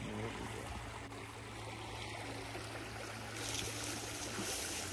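Small creek running over rocks, a steady rush and trickle of water that swells a little about three and a half seconds in.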